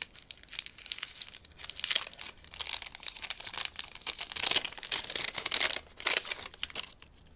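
Wrapping of a small gift package crinkling and tearing as it is unwrapped by hand, in irregular bursts of rustling and crackling.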